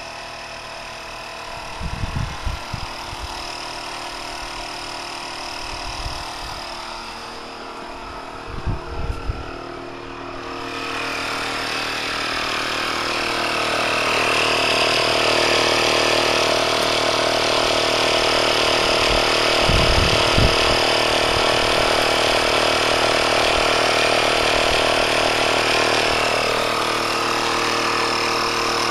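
Air pump running steadily while inflating a flat tyre and pushing sealant into it. It grows louder about ten to fourteen seconds in, and there are a few brief low thumps.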